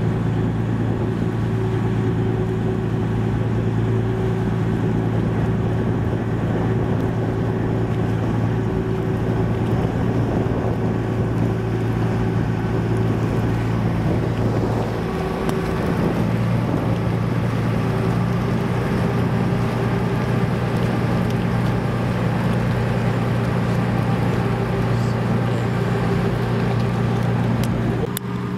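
Small motorboat's engine running steadily at a constant speed, with a slight change in its note about halfway through and a click near the end.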